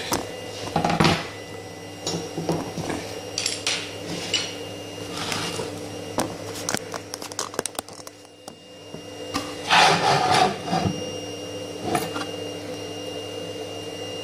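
Handling noises as a freshly printed ABS part is lifted out of a 3D printer enclosure and set down: scattered knocks, clicks and light plastic clatter, loudest about ten seconds in. A steady machine hum runs underneath.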